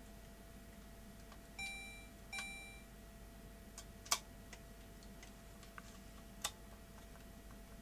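Two short electronic beeps, less than a second apart, then a few faint clicks as the camcorder's tape compartment is handled.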